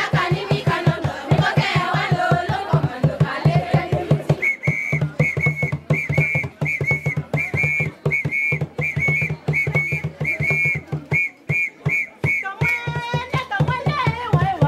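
Dance music with a fast, steady drumbeat. Group singing over the beat gives way about four seconds in to a whistle blown in short, rhythmic blasts for about eight seconds, then a brief call and the singing comes back near the end.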